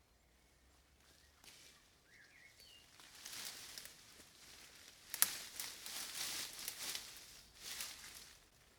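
Irregular rustling and crunching in forest brush or ground cover, with a sharp snap about five seconds in, and a faint bird chirp early on.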